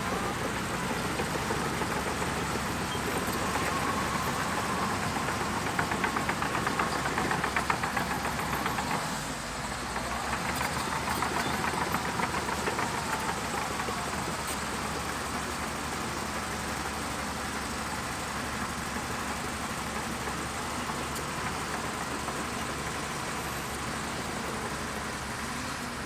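Shantui DH17C2 bulldozer's diesel engine running, its pitch rising and falling as it works during the first half, then running steadily.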